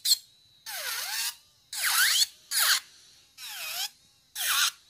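Brushless cordless nail e-file with a ceramic bit grinding dip powder off a nail in five short passes. Each pass is a high whine that dips in pitch and comes back up as the bit meets the nail, and the motor is almost silent between passes, 'nice and quiet'.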